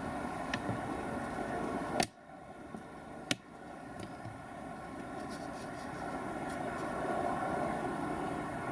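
Steady outdoor drone carrying several faint steady tones. It is broken by two sharp clicks about two and three and a half seconds in. After the first click it drops away, then slowly builds back up.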